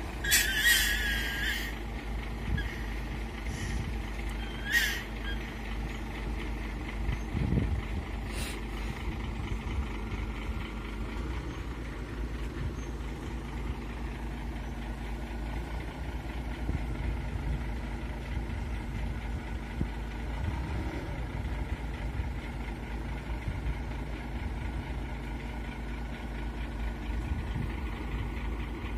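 Heavy truck engine running steadily at a low, even pitch, with a few short high squeals or hisses in the first several seconds.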